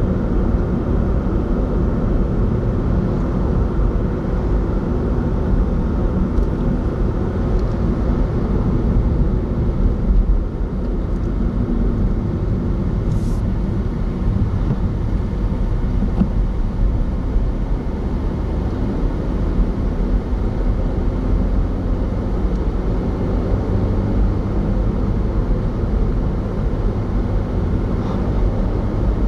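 A car driving along a road, heard from inside the cabin: a steady low rumble of tyre and road noise with engine hum.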